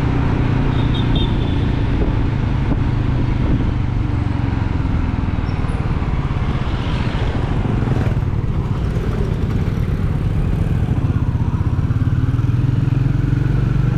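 Royal Enfield Meteor 350's single-cylinder engine and exhaust running steadily while the motorcycle cruises.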